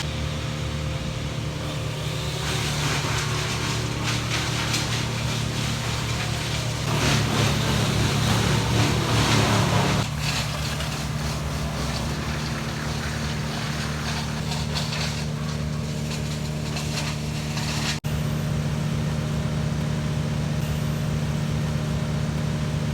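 A motor engine running steadily, rising louder for a few seconds around the middle, then settling back. There is a brief cut in the sound a little later.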